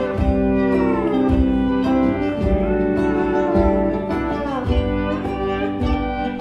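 Live band playing an instrumental passage: an electric guitar lead with long notes that slide down in pitch, twice, over a steady beat on hand drums and guitar accompaniment.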